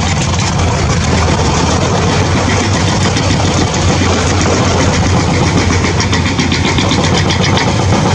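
An engine running steadily: a continuous low hum with a rattly hiss above it, even in level throughout.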